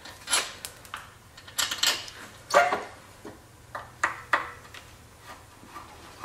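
Irregular clicks, knocks and rubbing from hand work with a Phillips screwdriver on a Craftsman snowblower's plastic handle panel as screws and steering cables are undone. The loudest knock comes about two and a half seconds in.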